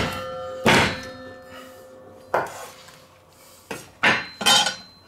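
A chef's knife cutting through a head of white cabbage, each stroke ending in a sharp knock on the wooden cutting board, about six in all. A faint metallic ring hangs on briefly after the knock about a second in.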